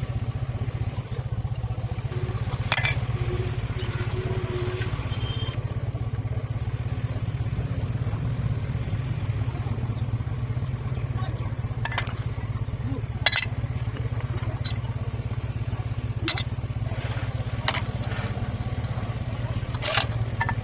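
A motorcycle engine running steadily in the background, with a sharp metallic clink of tools now and then, about six in all.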